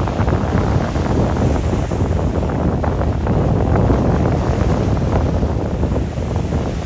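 Wind buffeting the microphone: a steady, loud, low rumble that flutters with the gusts.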